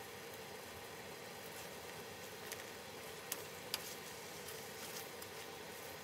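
Chicken breasts sizzling steadily in a bubbling sauce in a frying pan, with a few sharp clicks of tongs in the pan from about two and a half seconds in.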